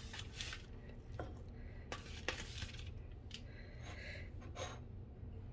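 Spatula scraping garlic-scape compound butter out of a mixing bowl: a few short scrapes, with light clinks against the bowl.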